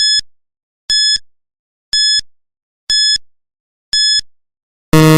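Quiz countdown-timer sound effect: five short, high electronic beeps, one a second, then a longer, lower buzzer tone near the end to mark time up.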